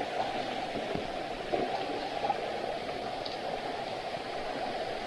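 Steady rushing of a jungle stream's water flowing over rocks near a waterfall.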